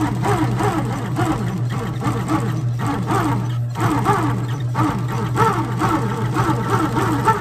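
Industrial sewing machine stitching leather: a steady motor hum with a rhythmic rising and falling whine, about two to three stitch cycles a second.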